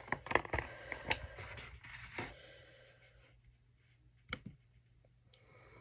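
Small cardboard box with a phone charger inside being handled and opened by hand. A quick run of light scrapes and clicks lasts about two seconds, then it goes quieter until one sharp click about four seconds in.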